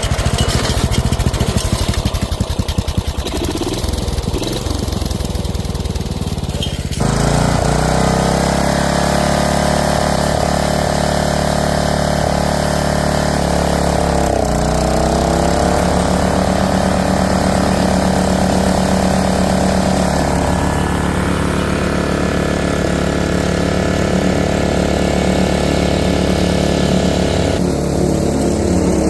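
Snapper riding lawnmower's small engine running. It chugs at low speed, then about seven seconds in is suddenly throttled up to a steady, higher-pitched run, with a brief dip in speed about halfway through.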